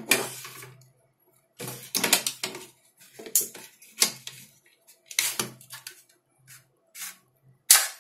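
Irregular clicks, knocks and short scrapes of hard rifle parts being handled and fitted together: a homemade airsoft rifle's bolt and piston cylinder assembly being set into its receiver. The loudest knock comes near the end.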